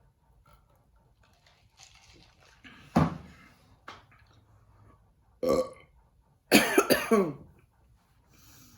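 A person burping three times, about 3 s, 5.5 s and 6.5 s in. The last is the longest, several pulses with a falling pitch.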